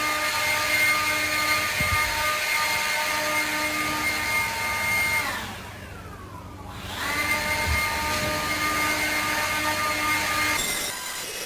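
A DeWalt leaf blower running steadily, blowing fine dust off a bare floor. Its whine drops away as the trigger is let off about five seconds in, rises back to speed a second and a half later, and stops near the end.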